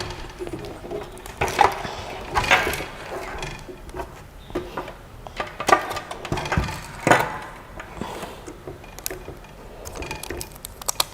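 Irregular knocks, clicks and rustles of machine parts and packaging being handled and set down.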